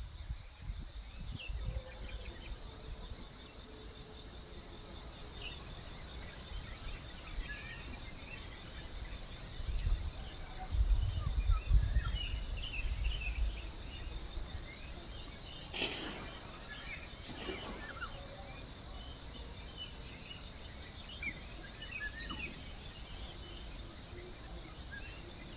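Outdoor ambience of a steady high insect drone with scattered bird chirps. Strong wind buffets the microphone in a low rumbling gust about ten seconds in, lasting a few seconds.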